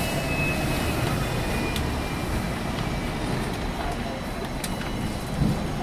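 Hong Kong double-decker electric tram running, heard from inside on the upper deck: a steady rumble of its steel wheels on the rails, with a few sharp clicks.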